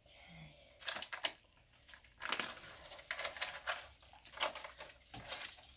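Handling noises: clusters of light clicks, taps and scraping rustles as objects are picked up, moved and set down. They come in three bunches, about a second in, around two and a half to three and a half seconds, and near the end.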